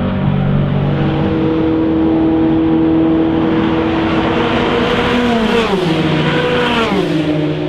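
Endurance race cars running at speed, several engine notes at once. Two cars pass close by a little past halfway and near the end, their engine note falling sharply as each goes by.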